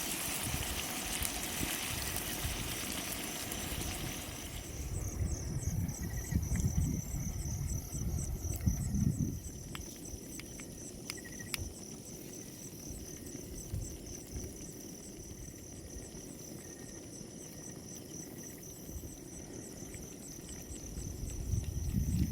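Insects trilling outdoors: a steady high buzz with a fast pulsing chirp above it. A broad steady rushing noise fills the first four seconds and then stops, and low rumbles of wind or handling on the microphone come and go.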